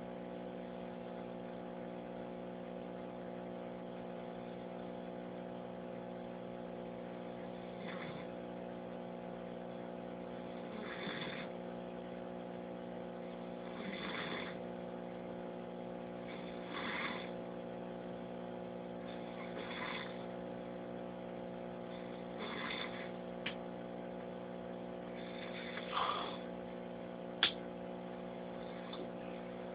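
A sleeping person snoring, one breath about every three seconds, over a steady electrical hum. Two sharp clicks near the end, the second the loudest sound.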